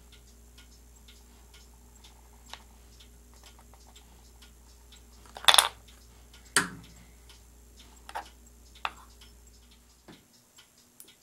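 Small metal-and-wood pen kit parts clatter and knock as they are handled at a pen press and set down on a wooden board: one loud clatter about halfway through, a knock a second later, then two lighter clicks. A steady faint ticking, about two ticks a second, runs underneath.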